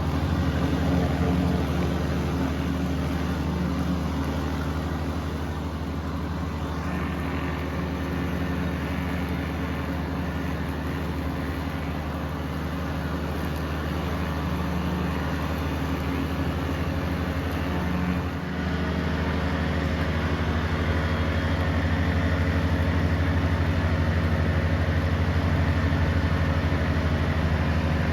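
Tractor engine running steadily, with a brief dip about eighteen seconds in.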